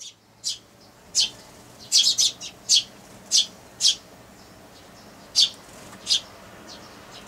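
Eurasian tree sparrows chirping: about a dozen short, sharp chirps at irregular intervals, several in a quick cluster around two seconds in.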